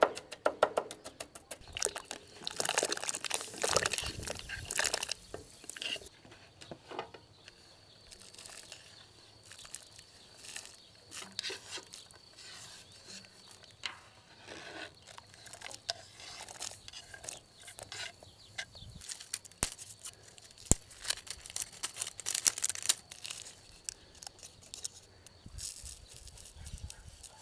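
Knife dicing onion on a wooden cutting board in quick, even strokes that stop about a second in, followed by scattered rustling, crinkling and clatter of food being handled.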